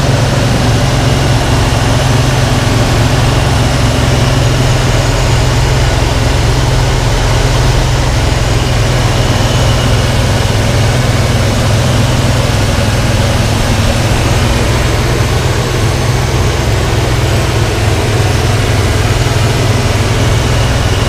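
Ford 5.0 (302) V8 with a BBK throttle body idling steadily, heard up close in the open engine bay.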